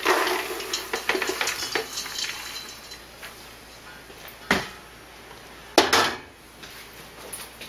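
Metal cooking pot and lid clattering and rattling for the first couple of seconds, then two sharp knocks, about four and a half and six seconds in.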